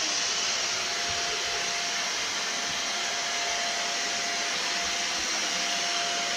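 Vacuum cleaner running steadily, a constant whine held over its rushing motor-and-airflow noise.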